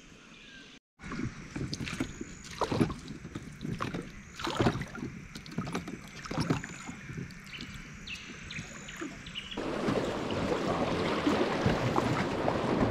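Irregular knocks and splashes of an inflatable drift boat moving on the water. About ten seconds in, these give way to the steady rush of river rapids as the raft runs fast, broken water.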